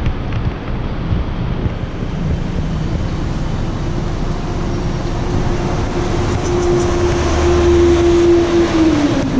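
Steady rumble of a passing train, with a humming tone that swells and then drops in pitch near the end.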